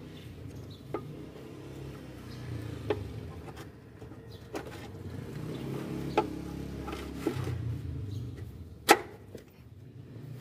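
Short clicks and knocks of metal and plastic parts as a throttle body is handled and seated back onto the engine's intake, about one every second or two, the loudest a sharp click near the end. A low steady hum sits underneath.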